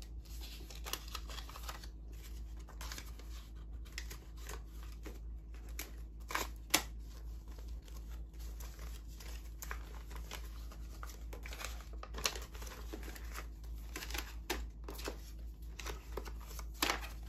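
US paper dollar bills being counted by hand: a string of short crisp snaps and rustles as the notes are flicked over one by one, with a steady low hum beneath.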